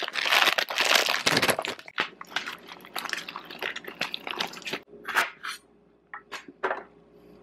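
Brussels sprouts poured from a plastic bag into a stainless steel bowl, the bag crinkling and the sprouts tumbling against the metal for about a second and a half. Then softer, scattered rustling and clicking as the sprouts are handled in rinse water in the bowl, and a few light taps near the end as they are set on a wooden cutting board.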